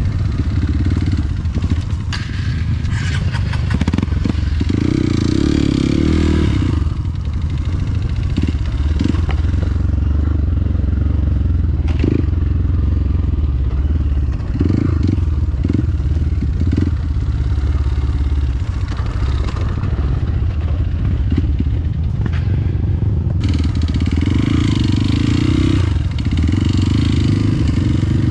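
A motorcycle running steadily while being ridden, with a few sharp knocks along the way.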